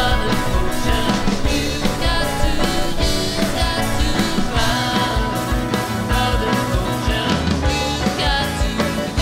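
Background music: a song with a steady beat.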